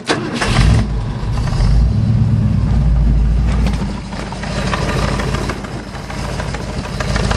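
1972 Ford F-100's 390 FE V8, breathing through Hooker competition headers and a glass-pack dual exhaust, catches just after a sharp click, swells briefly, then idles steadily. The engine is still cold.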